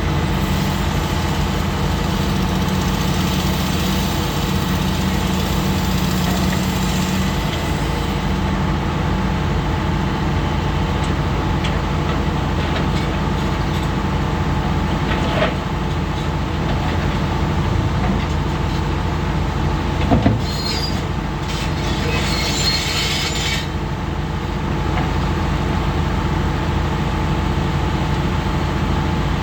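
Komatsu PC400 hydraulic excavator working, its diesel engine running steadily under load, with a sharp clank about twenty seconds in and a brief harsh, hissing-scraping burst just after.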